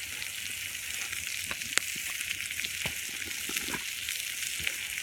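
Vegetables frying over a campfire with a steady sizzle, broken by scattered sharp pops and crackles, the loudest a little under two seconds in.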